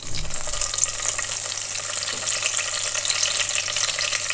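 Hot cooking oil in a wok sizzling as a masala-stuffed eggplant is lowered into it. The sizzle starts abruptly as the eggplant touches the oil and goes on as a steady crackling hiss.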